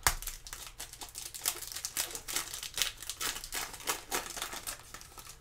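Foil trading-card pack being torn open and crinkled in gloved hands: a sharp crackle right at the start, then a dense run of irregular crinkling.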